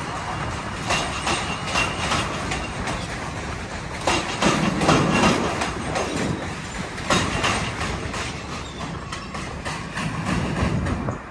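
New York City subway train passing on the Williamsburg Bridge's steel-structure tracks: a steady rumble with a rapid, uneven run of wheel clicks and clatter over the rail joints. It is loudest about halfway through and eases a little as the last cars go by.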